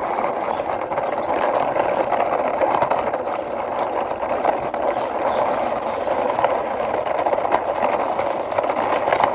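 Plastic wheels of a toy truck rolling steadily over rough concrete as it is pushed by hand: a continuous gritty rattle.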